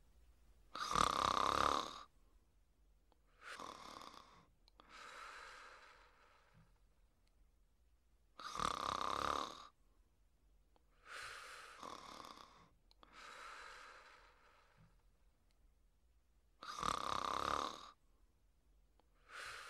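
Slow, heavy breathing: separate breaths about every two to three seconds, every third one louder.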